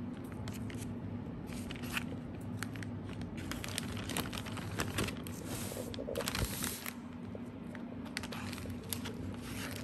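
Clear plastic freezer bag crinkling and rustling in short crackles as it is handled, over a steady low hum.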